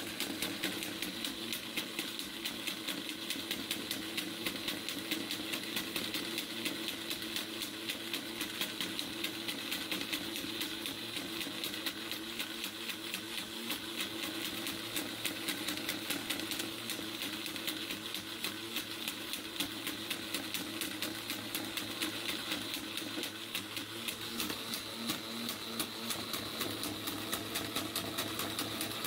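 A home-built impulse drive running steadily: a motor whirs as it drives a ball bearing around a curved plastic track, giving a rapid, even clicking rattle.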